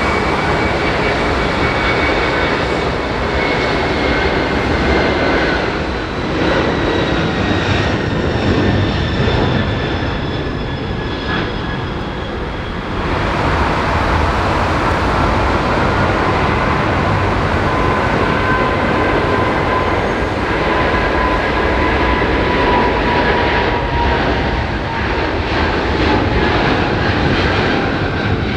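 Jet airliner engines running loud, a steady rushing noise with thin whining tones that slowly fall in pitch. The sound dips briefly about halfway, then builds again with a fresh set of falling whines.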